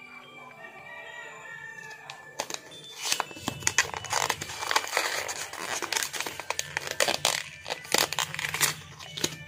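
Paper packaging rustling and crinkling close to the microphone as a small paper sleeve is handled and pulled open. It starts a couple of seconds in as a dense run of crackles and sharp rips.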